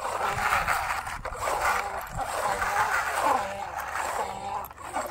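People's voices talking, over a steady scraping hiss.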